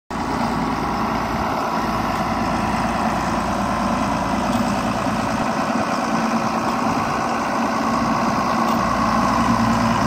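John Deere tractor's diesel engine running steadily at low speed while towing a magnetic sweeper across gravel, a constant low hum.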